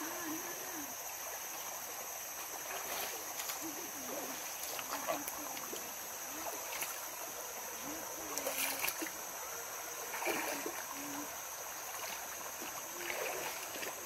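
Shallow rocky stream flowing and splashing over stones, with a steady high hiss above it. Faint low pitched sounds come and go every few seconds.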